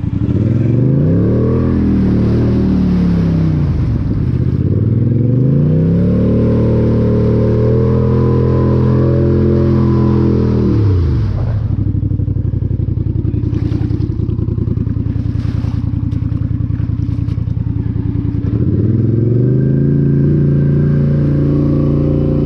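Polaris Sportsman 850 ATV's parallel-twin engine through an MBRP aftermarket exhaust, revving hard and easing off again and again as it pushes through deep mud. It holds high revs for several seconds, drops lower with some clatter in the middle, then revs up again near the end.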